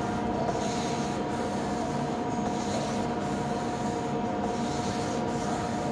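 Hand squeegee rubbing across vinyl film as it is pressed onto an acrylic sheet, giving a dry scraping hiss that swells with each stroke. A steady hum runs underneath.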